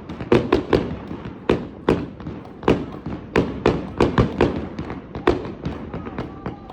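Fireworks display: aerial shells bursting in quick, irregular succession, about two to three sharp bangs a second, each trailing off in a short echo.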